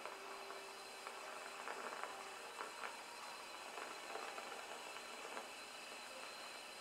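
Oxy-fuel torch flame hissing steadily as it heats a corner of sheet-steel guard for bending, with a few faint crackles about a second to five seconds in.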